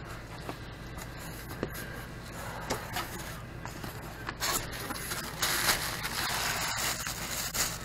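Cardboard box flaps and a plastic packing bag rustling and scraping as a box is opened by hand, in short irregular bursts with small clicks and knocks.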